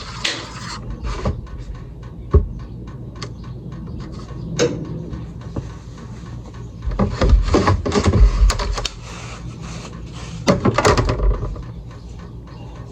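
Kitchen handling noises: scattered clicks and knocks, one sharper knock a couple of seconds in, and two longer rubbing, clattering bursts about seven and ten seconds in.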